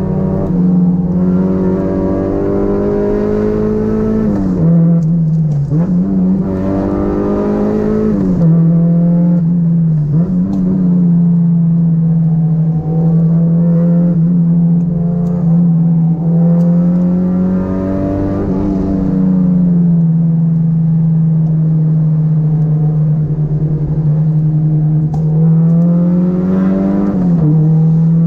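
Honda Integra DC2's four-cylinder engine heard from inside the cabin, under load with a steady drone. Its pitch climbs several times as it revs up, dipping briefly between climbs.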